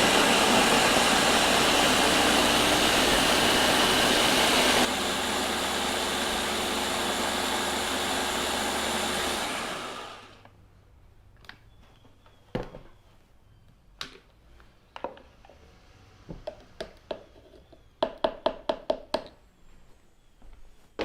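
Countertop blender running, pureeing a jerk marinade of onion, jalapeños, garlic, ginger, vinegar and oil; its sound steps down about five seconds in, then it winds down and stops about ten seconds in. A few single knocks follow, then a quick run of clicks near the end.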